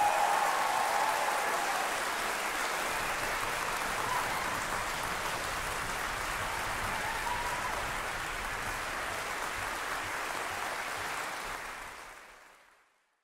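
Audience applauding in a concert hall, a steady dense clapping that fades out near the end.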